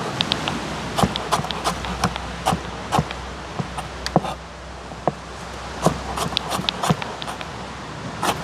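Knife chopping vegetables on a cutting board, with irregular sharp chops about three a second.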